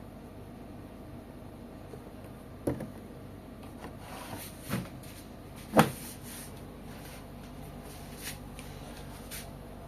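Handling noises at an LG washing machine: three dull knocks, the loudest about six seconds in, with light clicks and rustling between them.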